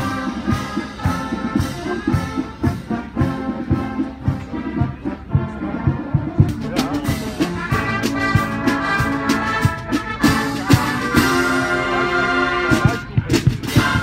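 Marching band playing: brass instruments, including trumpets, trombones and sousaphones, hold chords over drums beating a steady march rhythm.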